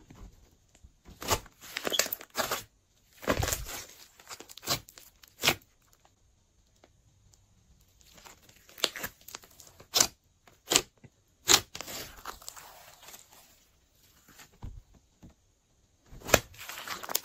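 Hands squishing, folding and pressing glossy slime: irregular sticky clicks, pops and short crackles, in bursts with a couple of brief quiet pauses.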